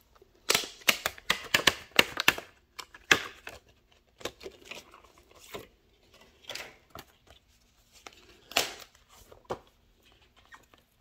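Clear plastic packaging on a notebook crinkling as it is handled and turned over and picked at with fingernails. A quick flurry of sharp crackles comes first, then scattered rustles and one more crackle later on.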